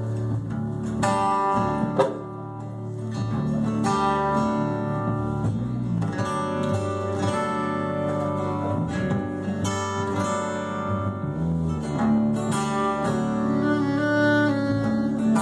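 A live band playing an instrumental passage: a strummed acoustic guitar over upright bass and keyboard, with no singing. A sharp click stands out about two seconds in.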